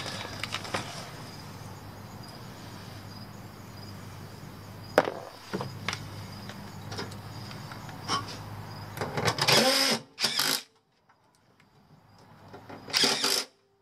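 Cordless drill-driver running in two short bursts near the end, driving screws into the sheet-metal top of a furnace heat exchanger. Before that there is a low steady hum and a few light clicks.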